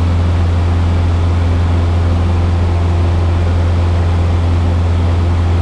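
Single-engine light aircraft's piston engine and propeller droning steadily in flight, heard inside the cockpit, with a strong deep hum and even cabin noise over it.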